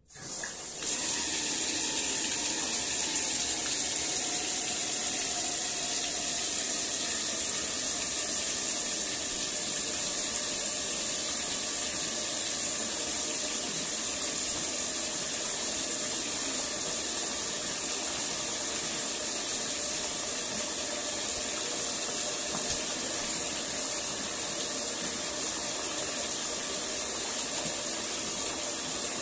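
Bathtub faucet turned on: water pours steadily from the tub spout into the tub, coming on in about half a second at the start and running evenly after that.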